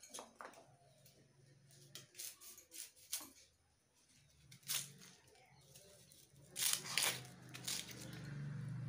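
Vegetables being cut and onion skin peeled on a boti, a curved floor-mounted kitchen blade: scattered crisp snaps, slices and tearing scrapes, the loudest a pair of strokes about two-thirds of the way through. A faint low hum runs underneath.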